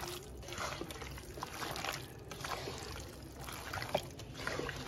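Wet, irregular squelching of a hand kneading and squeezing raw chicken pieces through a spice marinade in a pot, with small knocks of the pieces against the pot.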